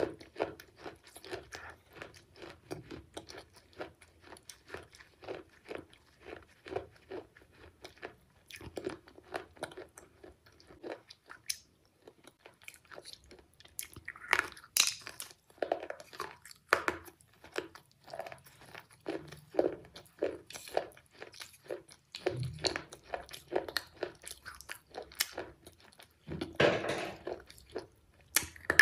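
A person crunching and chewing hard, brittle brown pieces close to the microphone, a steady run of crisp crunches about two to three a second, with louder bites about halfway through and again near the end.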